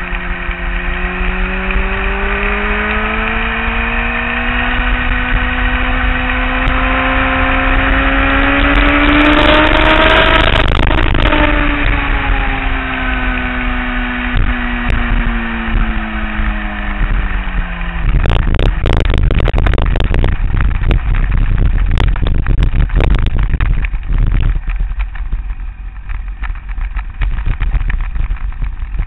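Kawasaki ZX-10R sportbike engine accelerating hard, its note rising for about ten seconds with a rush of wind at the top, then easing off with a falling note. About eighteen seconds in the engine note drops away and the bike runs off the track across the grass with a jumble of bumps, knocks and rattles, quieter near the end.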